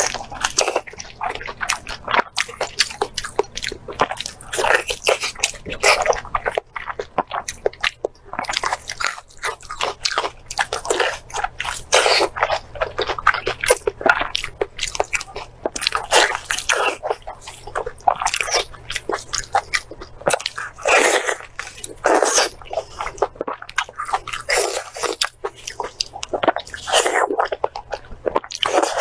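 Close-miked mukbang eating: biting and chewing steamed pork intestine, with irregular wet chewing sounds coming several times a second.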